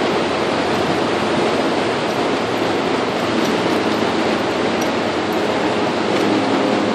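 Steady, loud rushing noise of shipyard machinery in a dry dock, with no distinct rhythm; a low humming tone comes in near the end.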